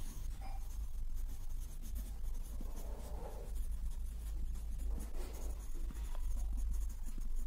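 Pencil writing on paper by hand: a run of short scratchy strokes over a low steady hum.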